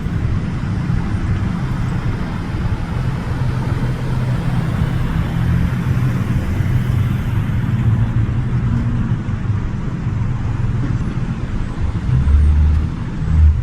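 Steady road traffic noise with the low hum of vehicles driving past, and two heavy low thumps near the end.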